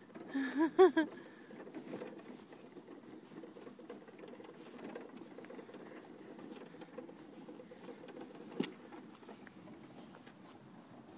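A wooden-sided pull wagon's wheels rolling over asphalt: a steady, grainy rumble and rattle, with one sharp knock about eight and a half seconds in. A brief voice just at the start.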